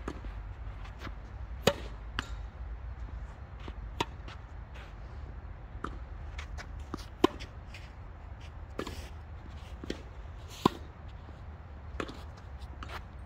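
Tennis balls being struck by rackets and bouncing on a hard court: about ten sharp pops spaced irregularly a second or two apart, over a low steady rumble.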